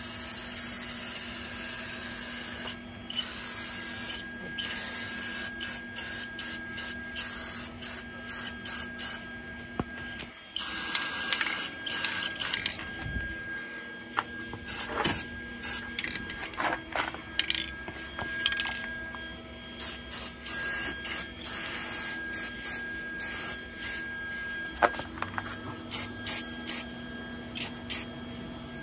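Aerosol spray paint can hissing as it paints a steel rack. It goes in bursts: several long sprays of a couple of seconds and many short, quick ones in between.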